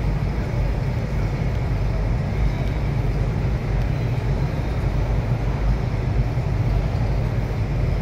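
Steady, unbroken low roar with a fainter hiss above it, the ambient noise of a large terminal hall.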